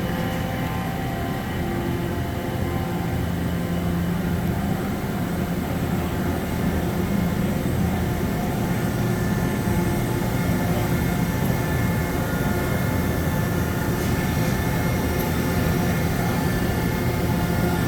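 Steady low machine hum with a few constant faint tones above it, from machinery running in a machine shop.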